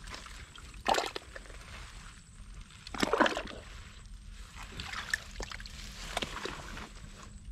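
Muddy water splashing and sloshing in several separate bursts a second or two apart, as a mud crab burrow is probed and dug out by hand or with a hooked crab rod.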